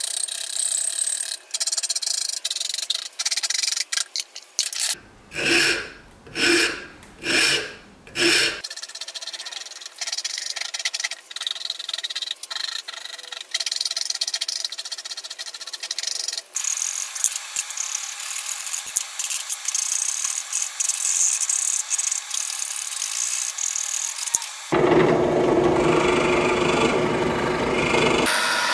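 A pierced shaping rasp scraping a small hardwood block in repeated strokes, with four heavier strokes about five seconds in, then steadier, finer rasping or sawing from about the middle on. Near the end a bench drill press runs louder for a few seconds and stops.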